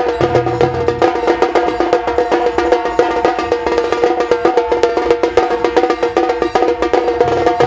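Music with fast, busy percussion over steady held tones.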